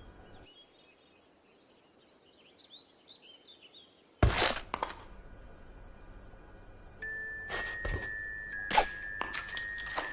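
Faint high tinkling chirps, then a sudden loud burst of broadcast static about four seconds in. From about seven seconds a steady high-pitched emergency-alert tone sounds, broken up again and again by crackles of static: a TV broadcast being cut off for an emergency alert.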